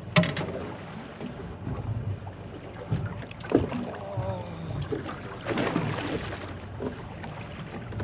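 Water slapping against the hull of a small boat and wind on the microphone, with a sharp knock just after the start and a few smaller knocks as the line and fish are hauled in over the side.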